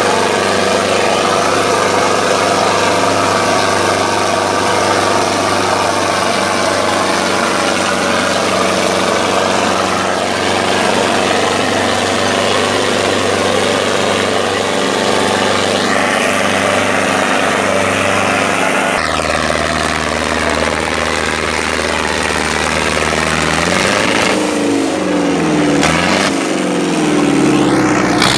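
Ace tractor's diesel engine running hard under heavy load, dragging two disc harrows, with a steady even drone. About 19 seconds in the note shifts lower, and near the end the pitch swings up and down several times.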